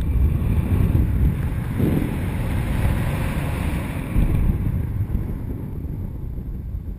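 Rushing air buffeting the microphone during paraglider flight: a loud, gusting rumble with a hiss that swells in the middle.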